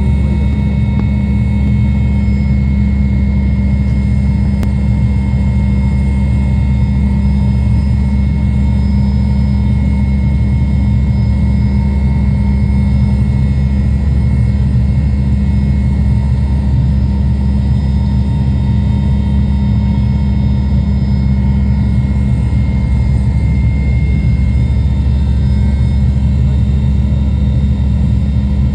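Mi-8 helicopter heard from inside the cabin: a loud, steady drone of rotor and engines, with a constant high whine over it.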